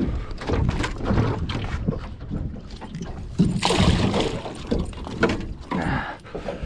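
A hooked northern pike thrashing and splashing at the surface beside the boat, loudest in a burst of spray about three and a half seconds in. Knocks and rustling in the aluminium boat as the angler works the fish.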